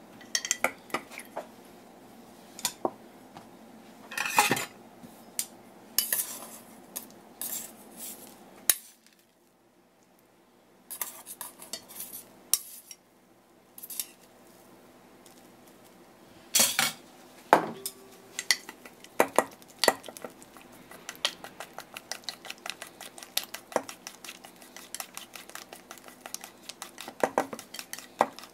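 Chopsticks knocking and scraping against stainless steel mixing bowls as chopped okra is scraped from one bowl into another. In the second half they switch to quick, light clicks as the okra is stirred together with sliced halfbeak.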